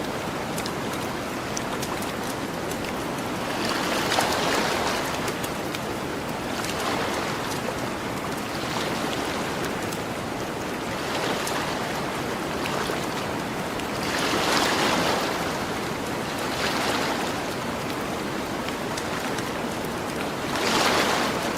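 Gentle ocean waves washing onto a beach, a steady hiss of surf that swells about six times as waves break and run up the shore, with faint crackles of a campfire throughout.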